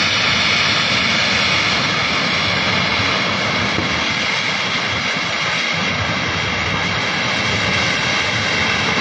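Floodwater of a swollen river rushing past: a loud, steady roar of water.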